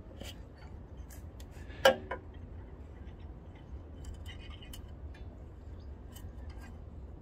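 Small metallic clicks and clinks of needle-nose pliers against a governor spring and its linkage on a four-stroke engine, while the spring is being hooked into its hole. One sharp click about two seconds in stands out, over a steady low rumble.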